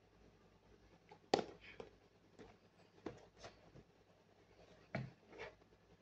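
Cardboard toy box handled and turned over in the hands: a few faint taps and scuffs of the packaging. The sharpest tap comes about a second and a half in, and another pair comes around five seconds.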